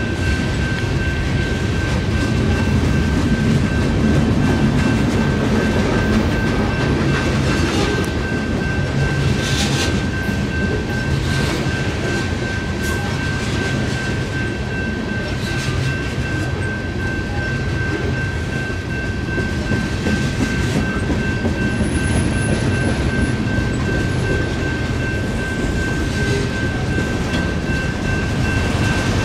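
Freight train cars rolling through a grade crossing: a steady low rumble with occasional sharp wheel clacks. Over it, the crossing's electronic bell rings without a break.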